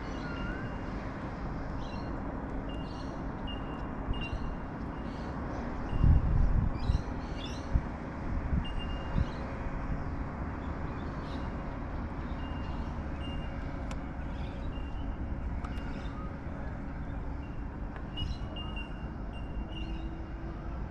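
Steady outdoor background noise with a low hum, short high-pitched chirps repeating roughly once a second, and a few dull knocks about six to nine seconds in.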